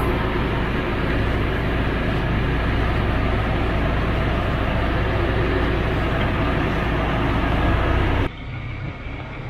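Off-road 4x4 engine running at idle while crawling slowly over a rough dirt trail, with steady drivetrain and tyre noise. The sound drops off abruptly near the end to a quieter engine hum.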